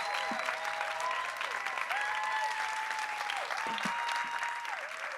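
Audience applauding, with voices cheering in long held calls over the clapping.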